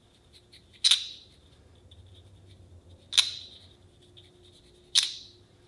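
Three sharp metal clinks, about a second in, past the middle and near the end, each with a brief ringing: a large steel bolt and a small metal tool knocking together in the hands while thread compound is worked onto the bolt.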